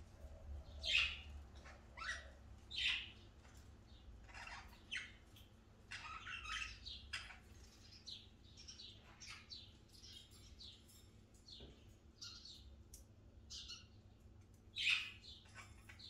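Several budgerigars chirping and chattering in many short, high calls, with a few louder calls about a second in, near three seconds and near the end.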